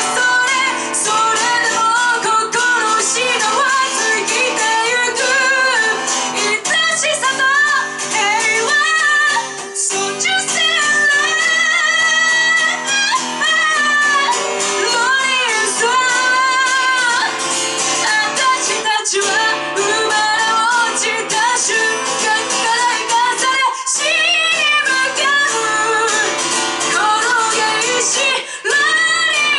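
Live rock band playing a song: a woman sings the melody over guitar and band accompaniment.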